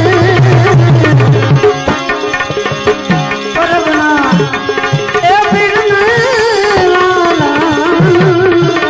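Devotional bhajan music: tabla playing a fast rhythm, its bass drum sliding down in pitch, with a dense run of strokes in the first second and a half and again near the end. Over it an ornamented, wavering melody line and steady held notes.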